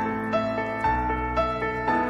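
Background music: soft piano notes struck about twice a second over held low notes.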